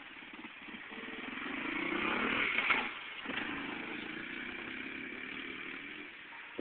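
Honda CRF70 dirt bike's small single-cylinder four-stroke engine as the bike rides past, growing louder to a peak about two and a half seconds in, dropping off sharply, then running on steadily and a little fainter.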